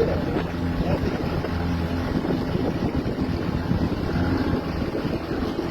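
An engine running steadily, a low even hum with rushing noise over it.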